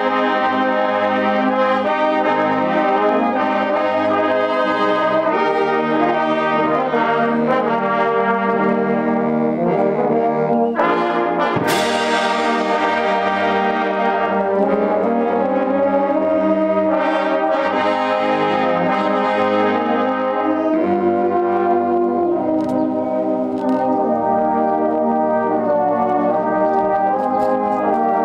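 A fanfare band of brass and saxophones playing a piece together under a conductor, with a cymbal crash about twelve seconds in that rings on as it fades.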